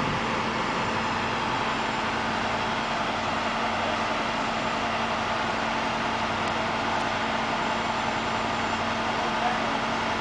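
Flatbed tow truck's engine idling, a steady unchanging hum.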